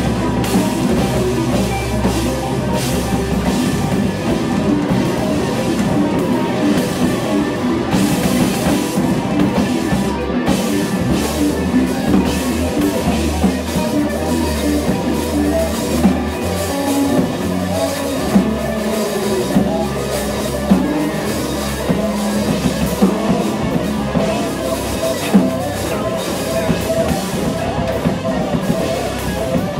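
A live rock band playing loud: a drum kit with cymbal hits, an electric guitar and a bass line, with a few sharp drum accents in the second half.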